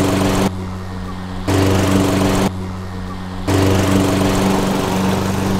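Ego 56-volt cordless electric self-propelled lawn mower running, a steady motor and blade hum whose loudness steps up and down about every second.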